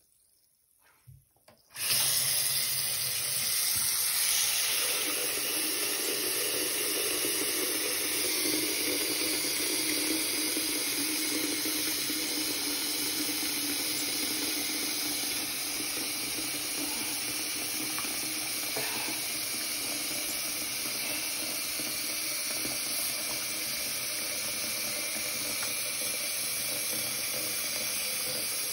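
Bathroom sink faucet running into a basin of water, starting suddenly about two seconds in and then holding as a steady rushing splash.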